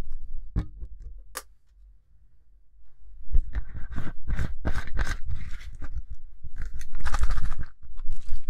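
A plastic toothpaste tube being handled: two sharp clicks near the start, then, after a short pause, a few seconds of crackling and scraping as the plastic is gripped and the cap is twisted.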